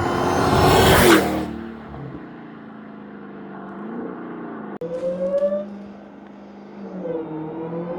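SRT Hellcat's supercharged 6.2-litre V8 revving. It climbs to a loud peak about a second in and drops back, then runs steadier with a few shorter blips in the second half.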